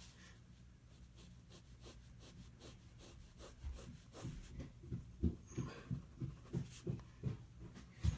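Pen scratching on paper as dark areas of a sketch are filled in, faint at first, then turning into quick, short hatching strokes about three a second over the second half.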